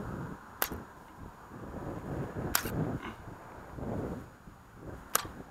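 Three sharp clicks a couple of seconds apart over low rumbling handling noise, as a fishing rod and baitcasting reel are worked to free a lure snagged in the cattails.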